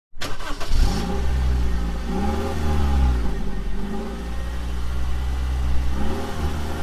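Nissan Serena's engine running and being revved up and back down a few times.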